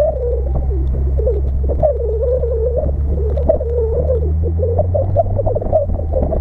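Car engine and drivetrain droning steadily on the move, heard from inside the vehicle, with a high wavering whine over it.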